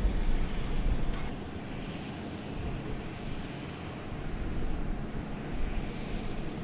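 Steady low rumbling noise with no distinct tones, the kind of outdoor background rumble of machinery, traffic or wind.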